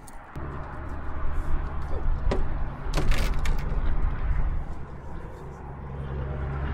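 A vehicle engine running steadily at a low hum, with a few sharp clicks about two and three seconds in.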